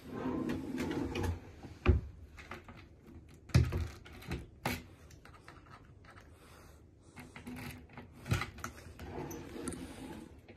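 Under-bed storage drawer sliding along its runners, with several sharp knocks as the drawer bumps and a small key is worked in its lock. The drawer slides again near the end.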